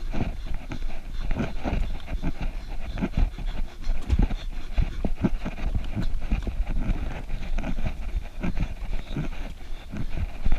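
A runner's footfalls on a dirt forest trail, a quick regular rhythm of thuds about two to three a second, with the runner's breathing.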